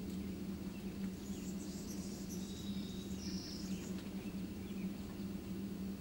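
Steady low hum with faint high chirps and a short thin buzzy trill about two to four seconds in.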